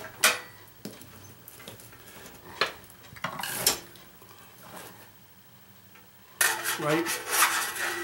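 Scattered metallic clicks and clinks of a screwdriver and hands against a stainless-steel toaster's body and inner frame, then a denser run of clattering and scraping for the last second and a half as the screwdriver works down into the toaster slot.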